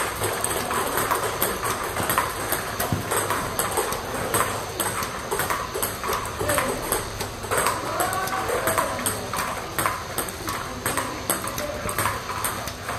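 Table tennis rally: the plastic ball knocking off the table and off pimpled-rubber bats in a quick, uneven run of sharp clicks, a few a second, as forehand flicks and hits are played against topspin.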